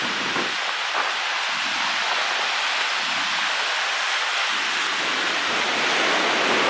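Storm-driven ocean surf breaking against the shore: a steady wash of noise that grows a little louder near the end.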